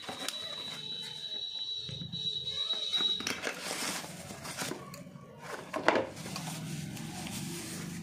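Rustling and crinkling of a cardboard box and the soft wrapping sheet as a new mouse is unpacked, with a sharp click about six seconds in. A steady high-pitched tone sounds for about the first three seconds and then stops.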